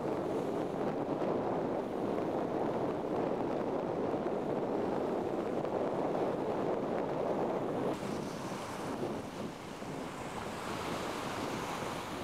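Surf washing onto a beach, mixed with wind buffeting the microphone: a steady rushing noise. About eight seconds in it drops a little in level and turns hissier.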